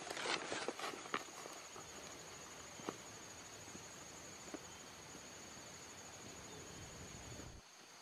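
Insects trilling steadily in a high, continuous drone. In the first second or so there is a cluster of rustling steps through grass, and a few soft clicks come later.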